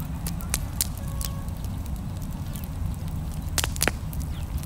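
Open wood campfire crackling, with irregular sharp pops from the burning logs, the loudest pair about three and a half seconds in, over a steady low rumble.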